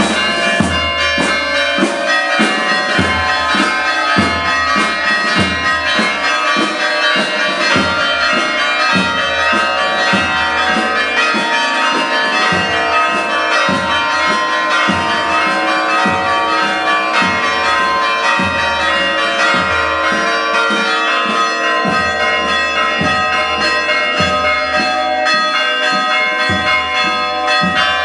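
Church bells pealing, struck over and over a little more than once a second, so that their tones ring on and overlap.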